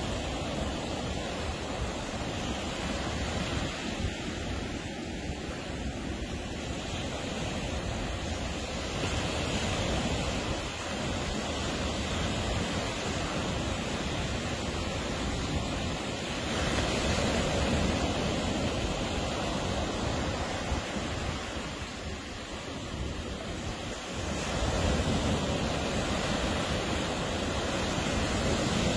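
Ocean surf breaking on a beach: a continuous wash of noise that swells and falls with the waves, growing louder a little past halfway and again near the end.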